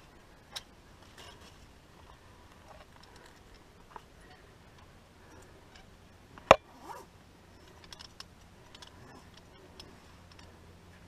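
Scattered light clicks and knocks of a climber's hands and gear against rock, with one sharp, loud knock about six and a half seconds in.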